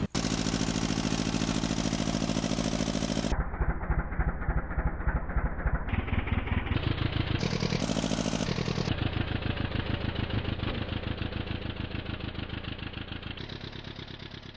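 Fishing boat's engine running steadily, its firing strokes heard as a regular rapid pulse, fading out near the end.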